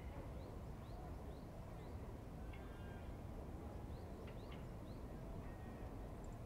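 Riverside birdsong: small birds giving many short, rising chirps, with a couple of longer calls about two and a half and five and a half seconds in, over a faint, steady low rumble.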